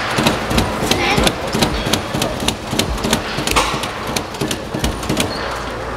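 Hand levers of a bottle-rocket launch exhibit being pulled down over and over, making repeated sharp clacks, several a second and unevenly spaced.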